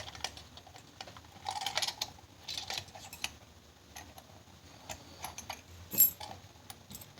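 Light metallic clicks and rattles of lock picks and a tension wrench being handled in a just-picked Kaba Ilco 1-inch zinc mortise cylinder, with one sharper click about six seconds in.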